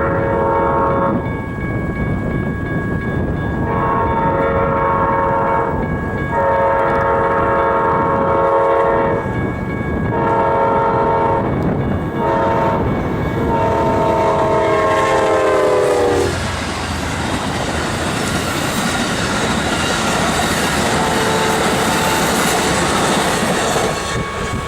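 GE P42DC diesel locomotive of an Amtrak passenger train sounding its horn for a level crossing: long, long, short and a final long blast, the last one dropping in pitch as the locomotive goes by. Then the rush and clickety-clack of the passenger cars passing at speed.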